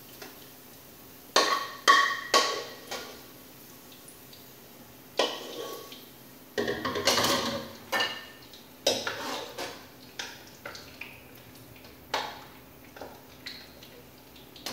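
Metal spoon knocking and scraping against a metal skillet and a strainer over a glass dish as browned sausage is scooped out: a dozen or so separate clinks with a short ring, irregularly spaced, and a denser clatter of scraping about seven seconds in.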